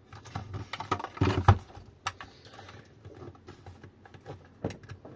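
Plastic casing of an A2B Kuo e-bike battery pack clicking and knocking as it is gripped and twisted to break the glue holding it together. There are many scattered clicks, with the loudest knocks about a second in.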